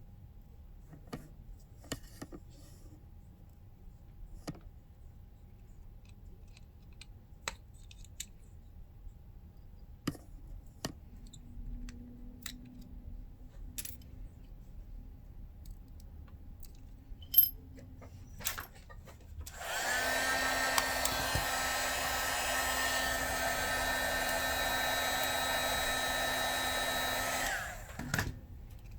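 Faint scattered clicks of small tools, then a handheld electric blower starts about two-thirds of the way in, runs steadily with a fan whine for about eight seconds, and cuts off near the end.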